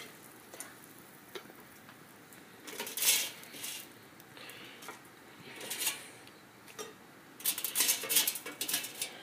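Cutlery clinking and scraping on a plate: a couple of short scrapes, then a busier run of clinks near the end.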